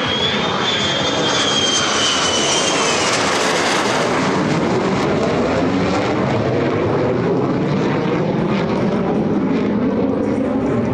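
Aircraft engine noise: a steady rush and rumble, with a high wavering whine over the first three seconds.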